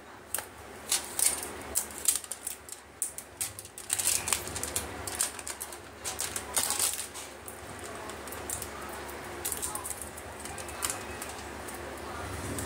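Scissors snipping and plastic shrink wrap crinkling as a phone box is cut open, a dense run of crisp clicks and rustles for the first several seconds. The handling of the cardboard box then goes on more quietly.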